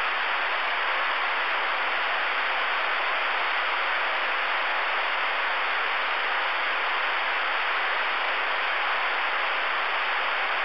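Steady hiss of open band noise from an RCI-2990 ten-meter radio's receiver, with no station transmitting on the frequency.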